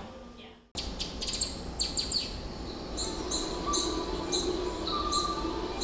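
Recorded birdsong played back as the performance opens: repeated short high chirps, two or three a second, cutting in abruptly just under a second in over a low steady hum.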